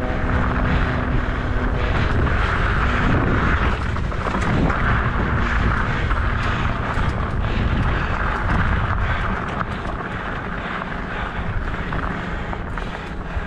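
Mountain bike on 29 x 3 plus-size tyres ridden over a rocky dirt trail: wind rumbling on the ride-mounted microphone, with the tyres rolling and many short clicks and rattles as the bike goes over rough ground. The noise eases a little about two-thirds of the way through.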